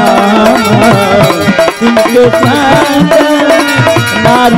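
Devotional folk music with a dholak drum played in a steady rhythm, its bass strokes sliding in pitch, under a wavering melody line.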